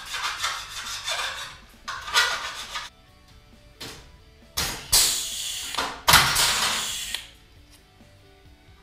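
A 3/16-inch pneumatic rivet gun working on an aluminum frame: a few short noisy strokes in the first three seconds, then two loud hisses of air about a second long each, around the middle. Background music runs underneath.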